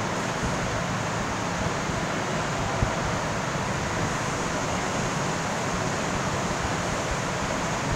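Steady, even rushing noise of a running fan, unchanging throughout.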